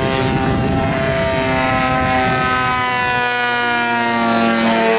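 The 150cc gas engine and propeller of a giant-scale RC Pitts Model 12 biplane, running in flight. The engine note drops slowly in pitch over the first few seconds, then holds steady.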